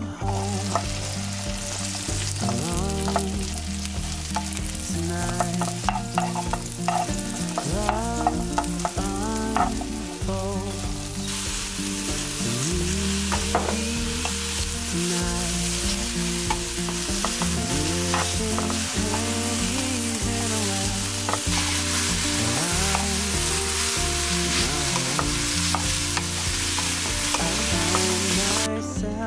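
Sliced shiitake and oyster mushrooms sizzling as they fry in a pan, stirred and turned with a wooden spatula. The sizzle grows louder about eleven seconds in.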